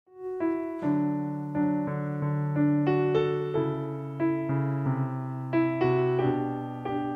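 Acoustic guitar playing an instrumental introduction out of silence: plucked notes roughly every half second over held low bass notes.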